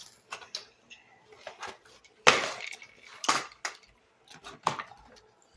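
Small hard objects clattering and knocking together in a run of separate knocks. The loudest comes about two seconds in, with two more strong ones about a second apart after it.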